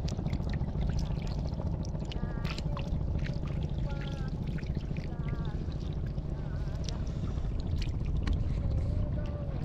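An eel and small fish thrashing in shallow water on a fishing net: many short splashes and drips over a steady low rumble.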